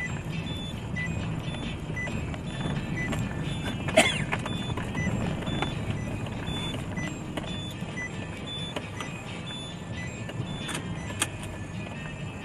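Steady low rumble of a vehicle driving along a narrow country lane, picked up by a dashcam, with a sharp knock about four seconds in and a couple of lighter clicks near the end.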